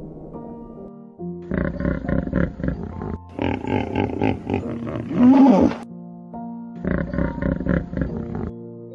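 A big cat roaring and growling in three rough bouts, with its loudest cry, rising and falling in pitch, about five seconds in, over background music with steady held notes.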